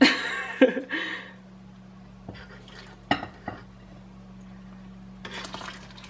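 Spoon and saucepan clattering against a bowl of dry birdseed mix: a scraping rattle at the start and a few sharp knocks. Near the end, a soft pouring sound as the melted peanut butter and shortening run from the pan into the seed.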